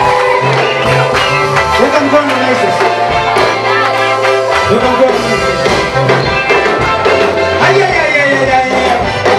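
Church gospel music: voices singing over instrumental backing, with a bass line moving in steps.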